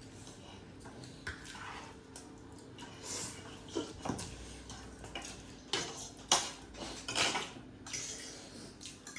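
Cutlery and dishes clinking and scraping during a meal, as irregular short clicks and taps with a few louder noisy bursts around the middle.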